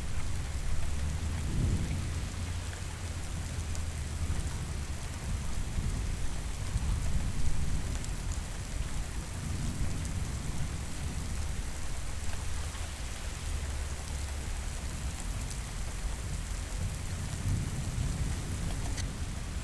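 Steady heavy rain with low rolling thunder rumbles that swell and fade a few times.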